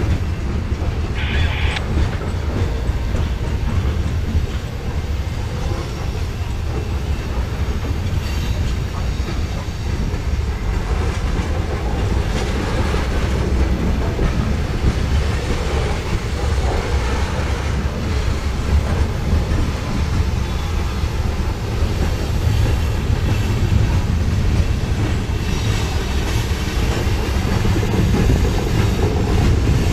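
Norfolk Southern freight train's open-top hopper cars rolling past at close range: a steady, loud rumble of steel wheels on rail with clickety-clack over the rail joints.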